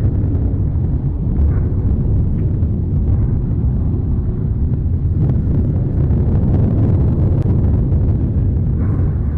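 Mount Etna erupting, heard on site: a continuous deep rumble with a few faint sharper pops from explosions in the crater.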